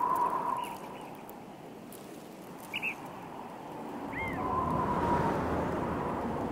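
Wind blowing steadily, swelling a little in the second half, with a few short bird chirps, one clearly about three seconds in and another about four seconds in.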